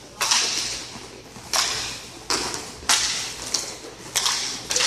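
Sharp clacks of hockey sticks and puck, echoing in a large hall: about seven, coming about every 0.6 s in the second half.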